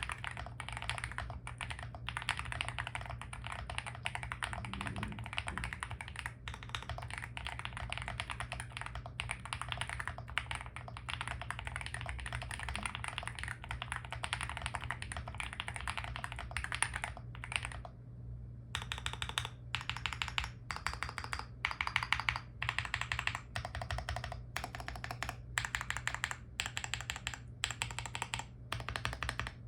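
Fast, continuous typing on a Weikav Record 65% mechanical keyboard with lubed and filmed Gateron Baby Kangaroo tactile switches on a polycarbonate plate, with polycarbonate cherry-profile keycaps. After a short pause about two-thirds of the way through, the typing gives way to separate presses of the larger stabilized keys in a stabilizer test.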